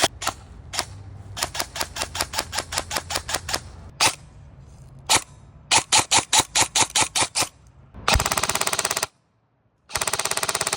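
Lancer Tactical Gen-4 airsoft electric gun firing: a few single shots, then quick strings of semi-automatic shots at about six a second, then two short full-auto bursts near the end, separated by a brief pause.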